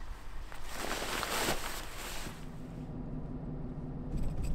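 Fabric boat cover rustling as it is handled, then a vehicle engine idling steadily, with a sharp knock near the end.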